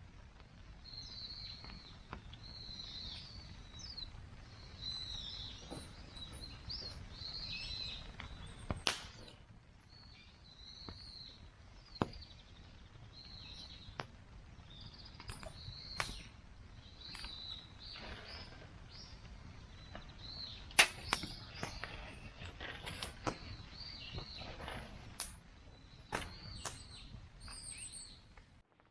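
Birds chirping over and over outdoors, with a dozen or so sharp clicks or knocks scattered through, the loudest a little after twenty seconds in.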